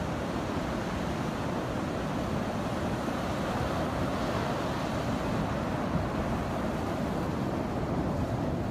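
Steady wash of surf breaking on a sandy beach, with wind buffeting the microphone.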